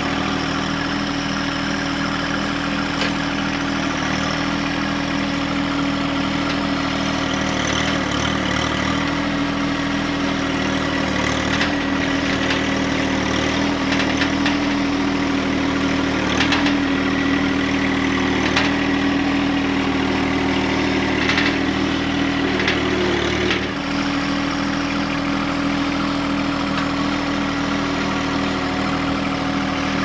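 John Deere 1025R compact tractor's three-cylinder diesel engine running steadily while the loader-mounted stump bucket is pushed through the soil digging a trench, with a few short clicks over the middle part. The engine note changes about three-quarters of the way through.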